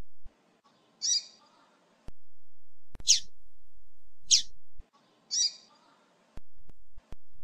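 Female double-collared seedeater (coleiro) calling: four short, high chirps, each sliding downward, spaced one to two seconds apart. This is the female's call, used to stir up a male coleiro.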